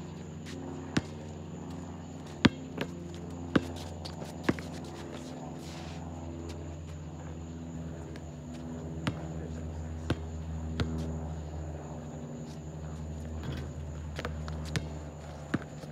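A basketball slapping on an asphalt court in separate, uneven bounces: a cluster in the first few seconds, a few more in the middle and two near the end. A steady low hum runs under them.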